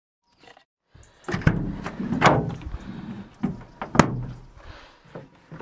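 A van's door clunking open, followed by thuds and rustling around the loaded cargo area. It starts about a second in, and the sharpest knock comes about four seconds in.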